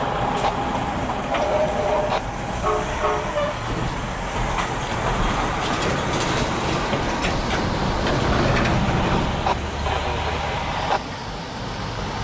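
F40PH-3 diesel locomotive's engine running with a steady low rumble, with a few short high tones in the first few seconds.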